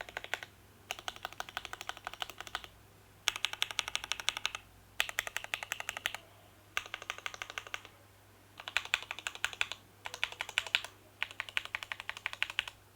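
Typing on a Borderland ergonomic mechanical keyboard with stock TTC Wild switches in a stacked-plate case: quick runs of keystrokes clacking in about eight bursts, each a second or so long, with short pauses between them.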